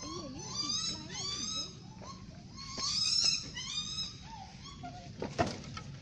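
Caged peafowl calling: two bouts of short, repeated calls, each arching up and down in pitch. A single sharp knock comes near the end.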